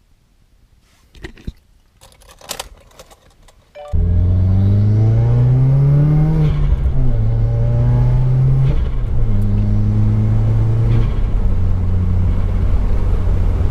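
A few faint clicks and knocks, then about four seconds in the 2015 Subaru WRX's turbocharged 2.0-litre flat-four (FA20) is running loudly under acceleration. Its pitch rises, then drops and climbs again a few times, as with gear changes.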